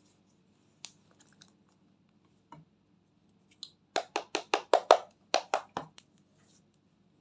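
Makeup brush scraping pressed glitter eyeshadow out of a palette pan: a few faint scratches, then a quick run of about eight loud, short scrapes, roughly four or five a second, around four to six seconds in.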